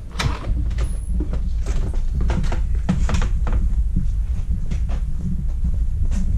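Footsteps and handling noise from a hand-held camera being carried, with a steady low rumble and a string of irregular knocks and clicks.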